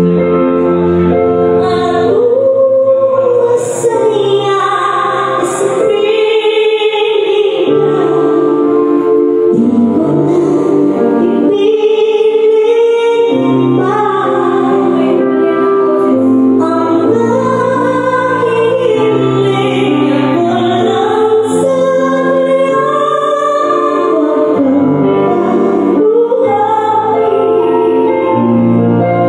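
A woman singing into a microphone through a PA, holding long notes that glide between pitches, over steady instrumental accompaniment.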